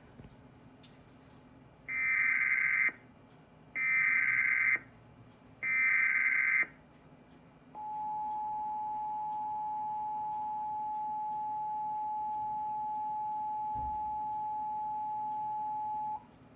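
Emergency Alert System header for a tornado warning: three one-second bursts of SAME digital data tones, a buzzy warble, then the EAS attention tone held steady for about eight seconds before the voice message.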